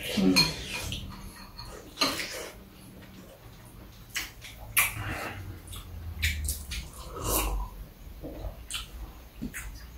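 Close mouth noises of people eating stew and rice: chewing and slurping, with short clicks of spoons and chopsticks against bowls, and a louder slurp from a mug a little after seven seconds in.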